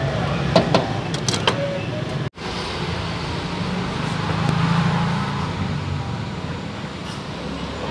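Steady rumble of street traffic, swelling briefly as a vehicle passes about halfway through. In the first two seconds a few sharp clinks of a metal strainer ladle against the bowl and pot, then a momentary break in the sound.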